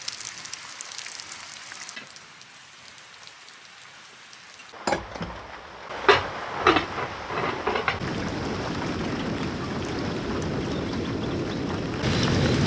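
Heavy rain falling and splashing on muddy ground, with several sharp cracks of thunder about five to seven seconds in. The thunder gives way to a steady, louder downpour with a low rumble that grows heavier near the end.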